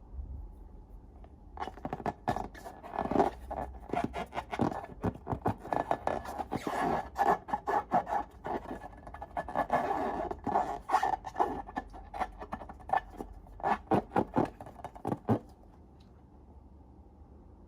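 Slime being worked by hand: a dense run of short sticky clicks and scrapes. It starts about a second and a half in and stops a couple of seconds before the end.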